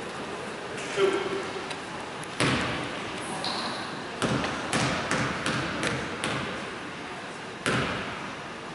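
Basketball bounced on a hardwood gym floor: about six even dribbles a little over two a second, with single thumps before and after, each echoing through the gym. It is the shooter's dribble routine at the free-throw line.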